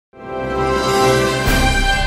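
Intro theme music: a sustained chord swells in, and about one and a half seconds in a hit brings in a pulsing bass beat.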